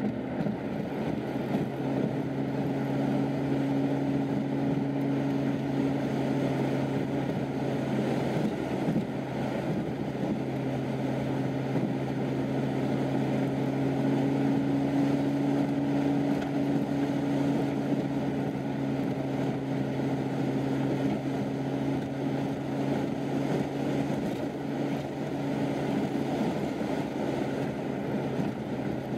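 Car driving at steady speed, heard from inside the cabin: a steady engine hum over tyre and road noise.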